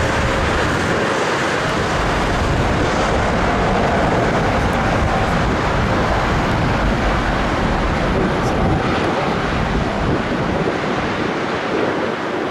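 Steady engine noise from a twin-engine Airbus A330-900neo jet airliner moving along the runway, mixed with wind buffeting the microphone.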